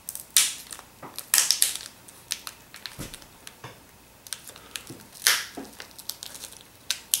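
Adhesive tape being peeled off a laptop LCD panel, with handling of the panel: a run of short, irregular rustling scrapes, louder ones about a second apart.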